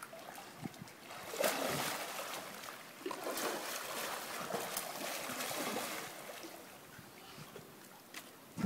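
Pool water splashing and churning as a child dives forward and swims underwater somersaults. The splashing is loudest from about a second in until about six seconds, then dies down to gentle lapping.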